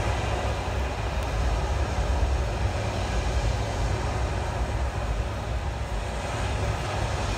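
Steady murmur of a large outdoor audience over a fluctuating low rumble.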